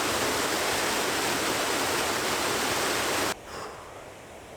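Waterfall, water rushing loud and steady; it cuts off abruptly about three seconds in, leaving a much fainter rush of water.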